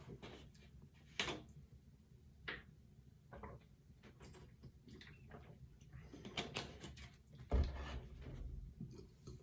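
A full stomach gurgling, heard up close: a string of short, irregular squelches and gurgles about a second apart, with a louder, deep thump about seven and a half seconds in. The stomach is stuffed after a large meal eaten on an empty stomach.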